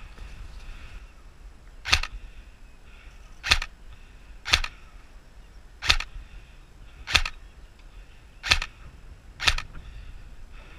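Airsoft gun firing seven single shots, sharp cracks spaced about a second to a second and a half apart.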